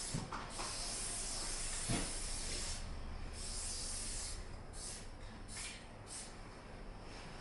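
Aerosol spray paint can hissing as graffiti is sprayed onto a wall: one long spray of about three seconds, then several shorter bursts with pauses between them. There is a light knock about two seconds in.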